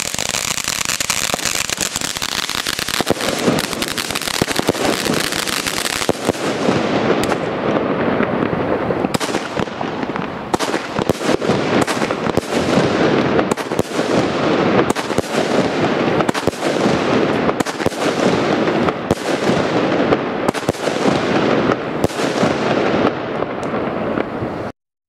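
Gaoo Collider 14-shot firework battery firing: a fountain hissing for about the first six seconds, then shots going off roughly once a second with crackling between. The sound stops abruptly just before the end.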